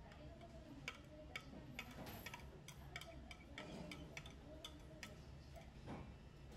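Chopsticks clicking and scraping against a clear plastic container as grated daikon radish is pushed out of it onto a bowl of udon: a string of faint, light clicks, a couple a second at uneven intervals.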